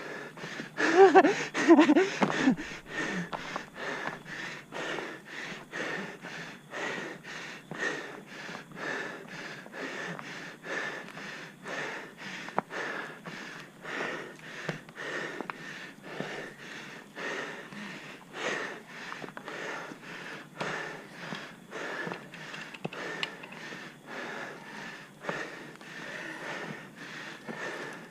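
A cyclist's heavy, fast, rhythmic panting while climbing a steep hill, with a loud strained vocal groan about a second in.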